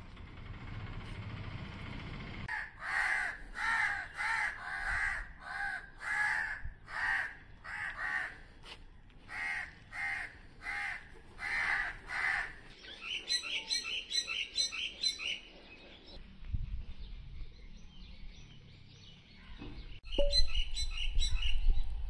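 Crow cawing: a long series of harsh caws, about two a second, for some ten seconds. It is followed by a quicker run of higher-pitched calls, and near the end more high calls over a low rumble.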